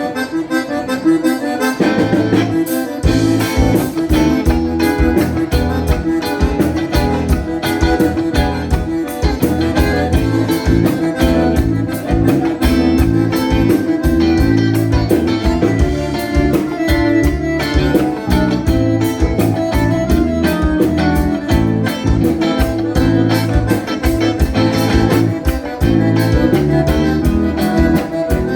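Live gaúcho band playing an instrumental milonga on accordion and guitar, with a steady, even dance beat.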